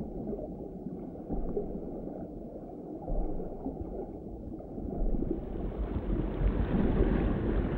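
Muffled underwater ambience: a low, steady rumble of moving water, growing louder and brighter about five seconds in.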